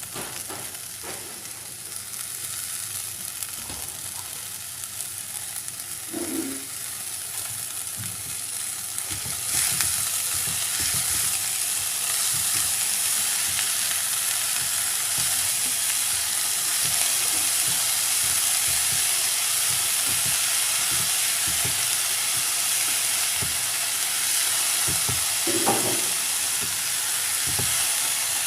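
Chopped amaranth leaves sizzling in hot oil in a frying pan while being stirred, with scattered light knocks from the stirring. About ten seconds in the sizzle jumps louder and then stays steady.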